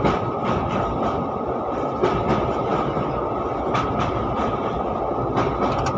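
Express passenger train running at speed, heard from inside a coach: a steady rumble of wheels on rail with a few clicks of the wheels passing over rail joints.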